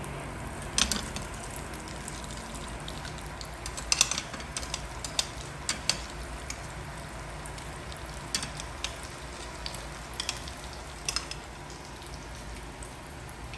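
Cornstarch-coated pork tenderloin pieces deep-frying in a stainless steel pot of oil: a steady sizzle, with scattered sharp clicks now and then.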